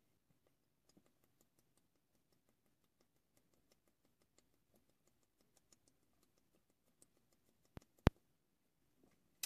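Faint drinking sounds from a long swig out of a 40 oz glass bottle of malt liquor: a run of soft clicks, about three a second, then two sharper clicks about eight seconds in.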